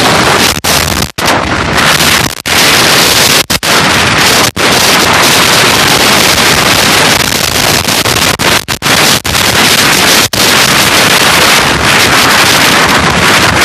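Heavy wind noise rushing over the microphone of a motorcycle ridden at top speed, loud and constant, cutting out for an instant several times.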